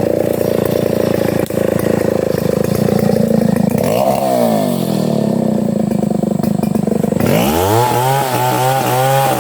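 Octagon 070 two-stroke chainsaw cutting wood under load, its chain dull and pinching in the cut. About four seconds in the engine's pitch falls away, and at about seven seconds it rises again into a higher, wavering run.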